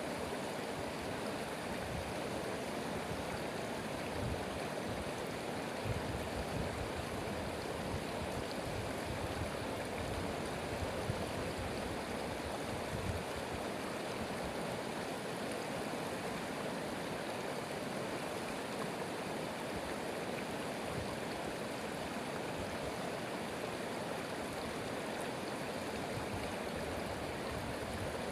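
Stream water running steadily, an even rushing with no birdsong or music standing out.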